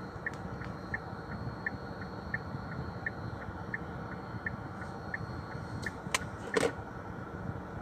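A car's indicator relay ticking steadily, about three ticks every two seconds, over the steady hum of the car's cabin. The ticking stops about five seconds in. A couple of clicks and a sharper knock follow about a second later.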